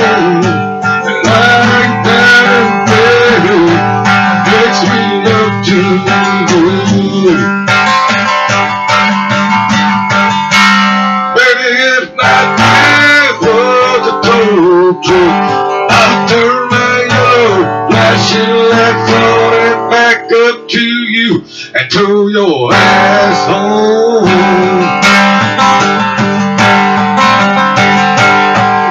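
Acoustic guitar strummed, with a man singing into the microphone over it. The playing drops away briefly about twelve seconds in and a couple of times around twenty-one seconds.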